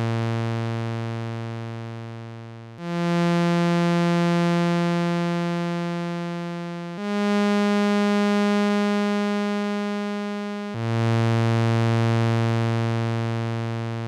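Behringer Model D monophonic analogue synthesizer playing a slow pad-like patch: a low held note fading, then three more notes about four seconds apart, two stepping higher and the last dropping back to the low note. Each note has a rich, buzzy tone, swells in gently with a slow attack and then slowly fades while held.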